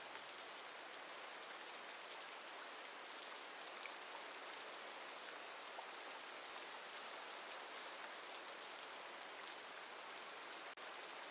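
Steady rain falling: an even hiss with faint scattered drop ticks, briefly dipping once near the end.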